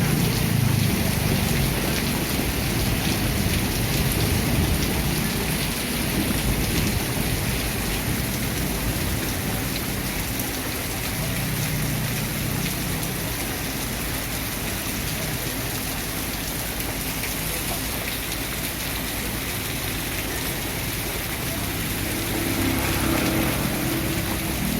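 Steady rain falling, an even hiss throughout. A low rumble swells in near the end.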